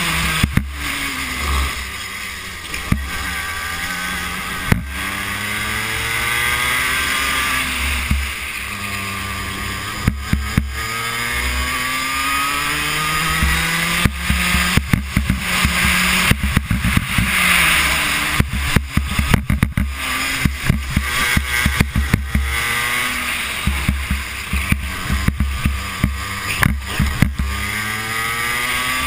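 Racing kart engine heard from on board, revving up along the straights and dropping off into the corners several times over, with many sharp clicks and knocks laid over it.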